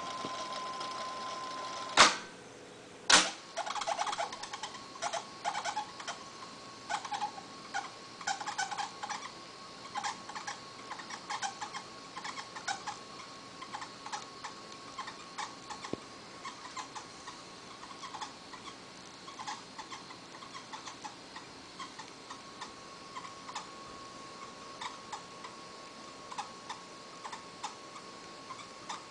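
Akai 4000DS MKII reel-to-reel tape deck: two loud clunks about two and three seconds in, then the left reel winding at speed with a steady whine and many short, irregular squeaks and ticks, which thin out towards the end. The squeak and spindle rattle are what the owner takes for a failing bearing.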